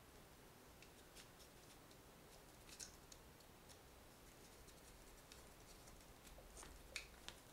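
Near silence with a few faint, small clicks, two of them near the end: a T6 Torx driver and tiny screws being worked into a folding knife's pocket clip.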